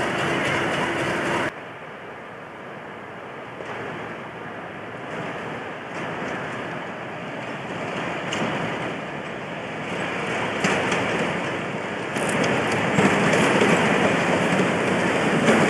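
British Rail Class 37 diesel-electric locomotive approaching with a freight train, its English Electric V12 engine growing steadily louder, with wheels clicking over rail joints more and more often near the end. The first second and a half holds a different, steadier train sound that stops abruptly.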